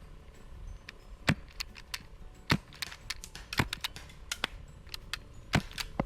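Airsoft gunfire: several sharp snaps about a second apart, with fainter clicks in between from gas guns firing and BBs striking.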